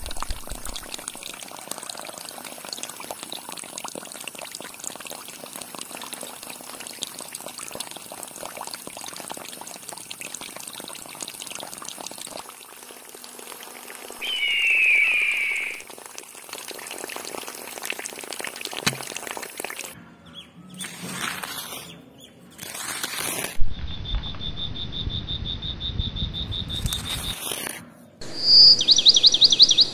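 Water trickling steadily, with a single bird call about halfway through and quick high bird chirps near the end.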